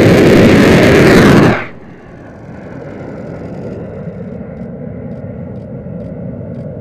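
XQ-58 Valkyrie's rocket booster firing at launch from its rail launcher: a very loud roar that cuts off about a second and a half in as the booster burns out. After that the drone's jet engine is left as a much fainter, steady rushing noise as it climbs away.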